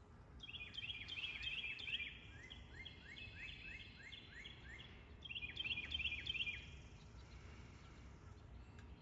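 A songbird singing a rapid series of short, high, downward-slurred notes, about five a second, for three seconds or so. After a short pause it sings a second, shorter burst. A low, steady outdoor rumble sits underneath.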